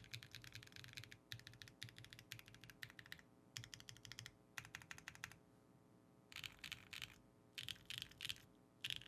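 Typing on a Neo 65 mechanical keyboard with a carbon fibre plate, BSUN Strawberry Shortcake tactile switches and Keykobo Helleborus keycaps: rapid runs of keystroke clicks, with a pause of about a second near the middle before faster bursts resume.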